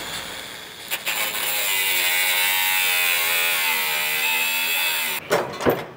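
Handheld angle grinder cutting through a shipping container's steel bolt seal: it starts with a click about a second in and runs with a steady high whine whose pitch sags in the middle as the disc cuts. It stops near the end, followed by a few sharp metal knocks.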